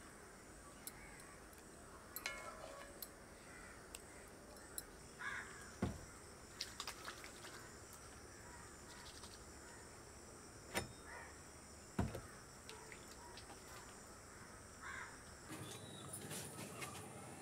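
Quiet outdoor ambience with occasional bird calls and a few sharp knocks, the loudest about six and twelve seconds in.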